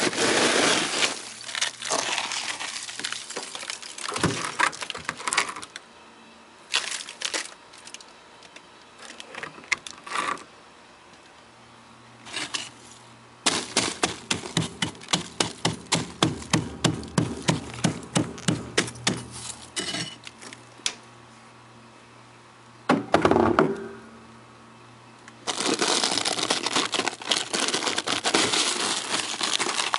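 Ice and frost in a garage freezer being chipped and scraped with a chisel: rough crunching scrapes, scattered single strikes, then a fast run of chopping strikes at about five a second. Near the end comes a stretch of steady crunching as the loosened frost is dug away.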